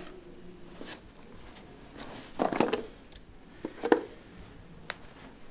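Handling noise as a rubber mallet, scissors and a small cardboard hardware box are set down on a carpeted floor: a soft rustling knock, then a sharp click about four seconds in and a smaller click a second later.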